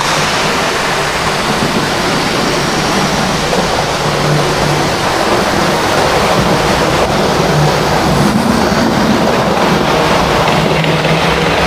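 A train running: a steady noise with a low hum under it.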